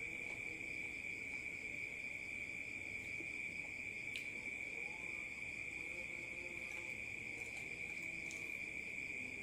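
Steady, high-pitched, unbroken insect trill, with a couple of faint ticks.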